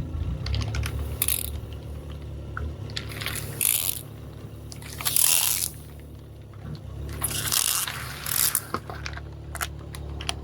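A car tyre rolling over and crushing objects: about five short, noisy crunching bursts, with a few sharp clicks near the end, over the steady low hum of the car's engine running.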